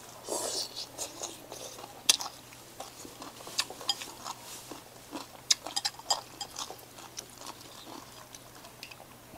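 A person eating noodle soup close to a clip-on microphone: a slurp of noodles about half a second in, then chewing with scattered light clicks of chopsticks and a metal spoon against the bowl.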